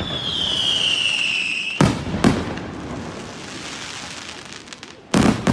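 Aerial fireworks: a long falling whistle for about two seconds, then two sharp bangs of bursting shells with some crackling, and two more loud bangs near the end.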